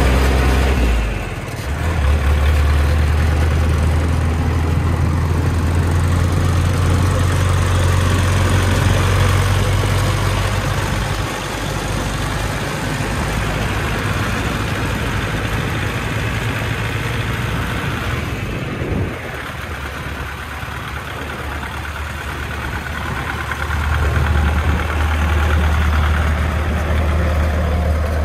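Engine of a sand-laden Hoa Mai light dump truck running as it drives slowly past, a heavy low rumble that weakens about a third of the way in, drops lower in the middle and swells again near the end.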